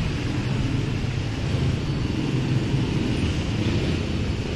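Steady road-traffic and street noise with a low rumble, picked up by a phone microphone while walking.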